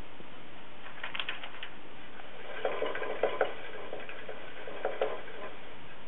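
Hamster climbing in its cage: light clicks and rattles from the cage as it grips and moves, in short clusters about a second in, around three seconds in and again near five seconds.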